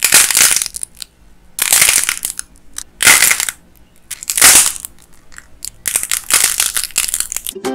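Dried clay coating on clay ice-cream bars cracking and crunching as fingers squeeze and peel it. Five bursts of crackling, the last one longer and broken into many small cracks.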